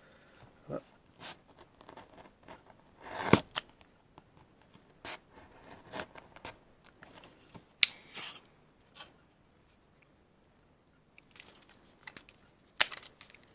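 Knife cutting through a thin wooden fruit-crate board: irregular short scratching and cracking strokes, the louder ones about three seconds in, around eight seconds and near the end.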